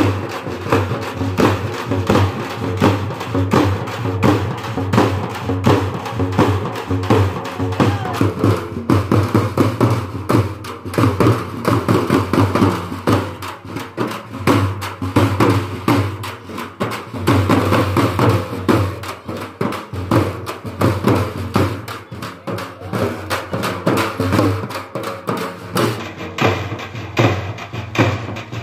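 Dappu frame drums beaten in a fast, driving rhythm, with voices from the crowd.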